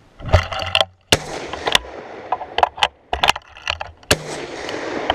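Single-shot Rossi 20-gauge shotgun fired, with a string of sharp cracks and smaller clicks and knocks from handling the gun.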